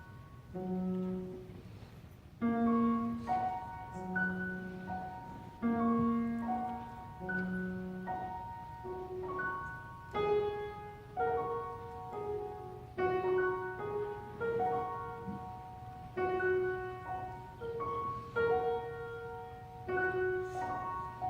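Piano played by a young child: a simple melody of single struck notes over a few low bass notes, at a moderate, even pace.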